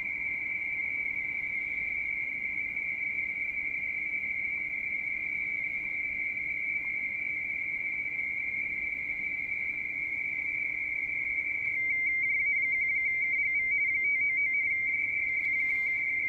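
Radioteletype (RTTY) signal on the 30 m shortwave band, heard from the receiver over a steady hiss: one steady high tone, which about twelve seconds in starts jumping rapidly between two close pitches as the station keys data, a little louder.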